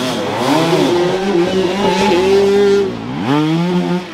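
Enduro dirt bike engine revving hard, its pitch rising and falling with the throttle, holding steady briefly, then climbing sharply about three seconds in before dropping away near the end.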